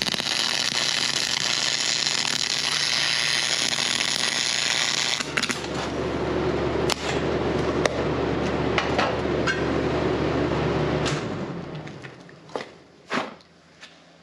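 MIG welding arc from a Miller CP300 cranked to full output, 44 volts and 700 inches per minute wire feed: a loud hissing arc for about five seconds, then crackling and popping, over a steady low hum. The arc stops about eleven seconds in, and a few sharp clicks follow near the end.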